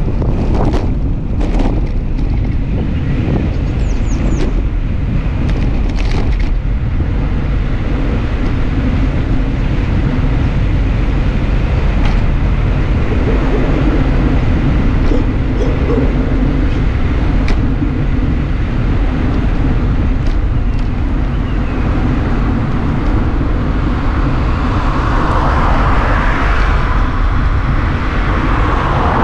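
Wind buffeting the microphone of a handlebar-mounted action camera on a moving bicycle, over steady tyre and road rumble, with a few sharp knocks in the first several seconds as the bike rolls over cracked asphalt. Near the end an oncoming car's road noise swells as it approaches.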